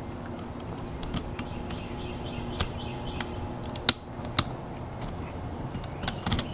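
Scattered small clicks and taps from plastic RC truck parts and a hex driver being handled on the workbench, with two sharper clicks about four seconds in. A faint steady hum runs underneath.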